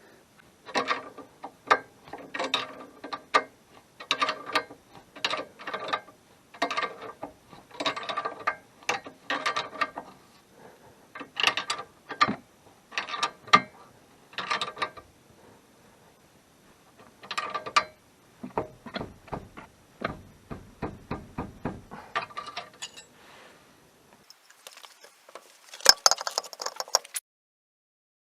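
Ratchet wrench clicking in repeated short bursts of strokes, with a run of slower, evenly spaced clicks about two-thirds of the way through. Near the end comes a sharper burst of clicks, then the sound cuts off.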